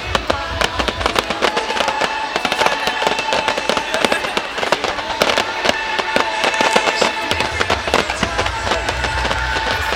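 Fireworks display crackling and popping, many small bangs in rapid succession, with music playing underneath.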